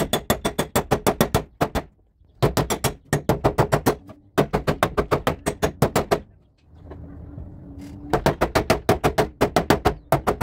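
A flat metal body spoon slapping the dented lower edge of a steel car door, fast strikes about seven a second, in four runs with short pauses between, as the dent is beaten out.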